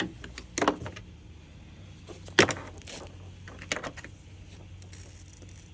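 Nylon webbing straps of a chest rig harness being pulled through their buckles: a few short rasps and clicks, the loudest about two and a half seconds in.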